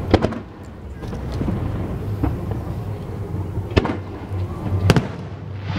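Aerial firework shells bursting: three sharp cracks, one just after the start and two close together around four and five seconds in, over a steady low rumble.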